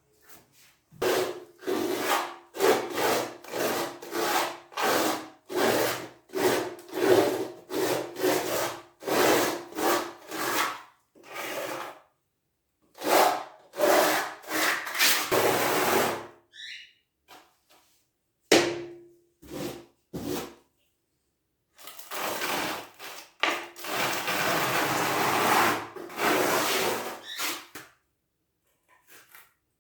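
Repeated back-and-forth scraping strokes of a hand tool on a hard surface, about two a second. Later the strokes run into longer unbroken stretches of scraping.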